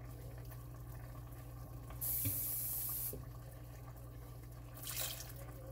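A kitchen tap runs for about a second, then gives a shorter, weaker spurt near the end. A steady low hum runs underneath.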